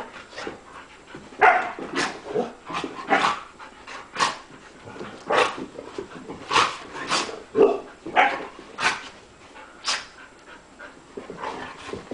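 Golden retrievers at play: more than a dozen short, sharp play sneezes and barks at irregular intervals, with panting between them.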